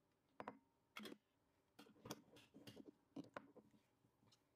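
Faint clinks and light knocks of kitchen handling: a metal ladle tapping a stainless steel pot and a glass jar being handled, with a lid being put on the filled jar near the end.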